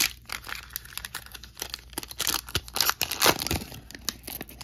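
Foil wrapper of a Fleer Ultra Avengers trading-card pack being torn open and crinkled by hand: a run of sharp, irregular crackles, loudest in the middle.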